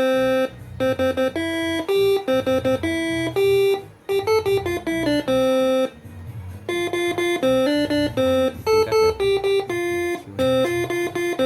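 Basuri six-trumpet telolet air horn playing a tune note by note under an MS2 melody module: steady, buzzy horn notes that jump abruptly from pitch to pitch, sometimes two sounding together. There are short breaks between phrases about four and six seconds in.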